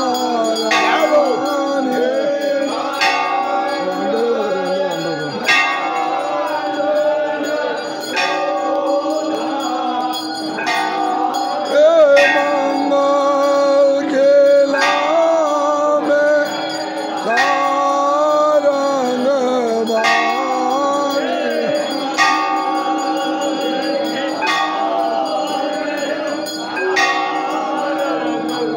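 Aarti music: a devotional song sung over a steady drone, with a temple bell struck at a steady beat of about one stroke every second and a half.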